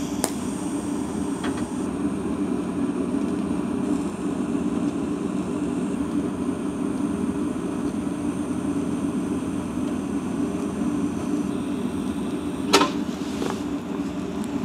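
TIG welding arc buzzing steadily while a steel flat bar is welded onto a fixture, with a thin high whine over it. The whine stops near the end, followed by a few sharp metallic clicks.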